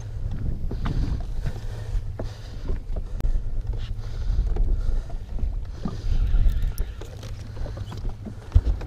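Wind rumbling on the microphone and water slapping against a fishing boat's hull, with scattered knocks and clatter on the deck.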